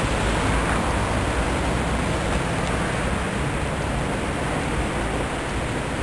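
Wind buffeting the microphone: a steady, deep rushing noise.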